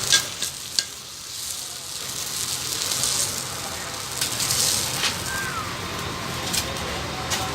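A dosa sizzling on a hot griddle: a steady frying hiss broken by several sharp taps.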